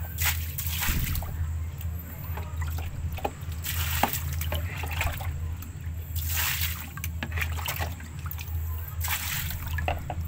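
Water splashing and sloshing in a shallow plastic tub in about four bursts as an alligator gar thrashes, over a steady low hum.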